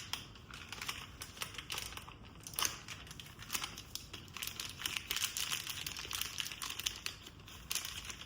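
Irregular small clicks, ticks and rustling of hands working a plastic camshaft position sensor and its surrounding parts loose on a switched-off engine.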